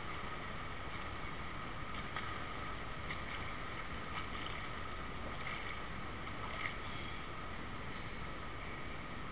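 Steady, muffled noise of an indoor swimming pool, with a few faint splashes from a swimmer doing front crawl toward the camera.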